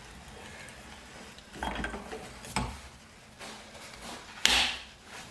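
Metal parts of an automatic belt tensioner being handled and fitted together: a few knocks and clinks, with one sharp, louder clack about four and a half seconds in.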